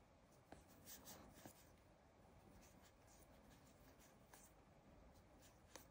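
Near silence, with faint scratchy rustling and a few soft ticks from a plastic crochet hook drawing yarn through double crochet stitches.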